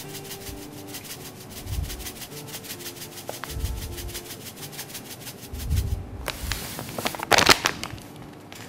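Sugar pouring from a bag into a glass mixing bowl, a steady fine hiss for about six seconds. Then the bag rustles in a few sharp bursts as it is set down.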